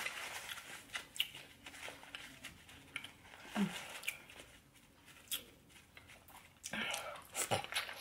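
Close-miked eating sounds: chewing, lip smacks and small wet clicks, coming in short irregular bursts with a livelier cluster near the end.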